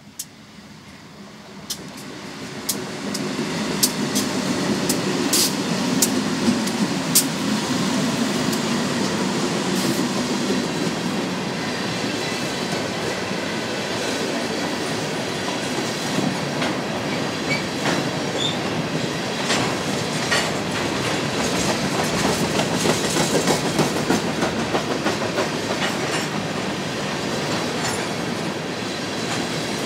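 BNSF freight train passing close by: the diesel locomotives' engine noise swells over the first few seconds as they draw level. A long string of three-bay covered hopper cars then rolls past in a steady loud rumble, with the wheels clicking sharply over the rail joints.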